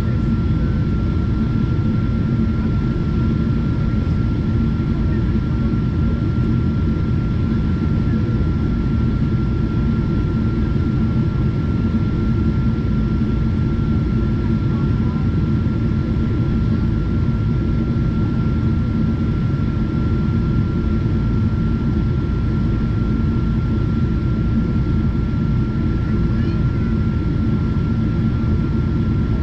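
Steady cabin noise inside a Boeing 777-200ER beside the wing during descent: a low rumble of its Rolls-Royce Trent 892 engines and airflow, with a thin steady high whine over it, unchanging throughout.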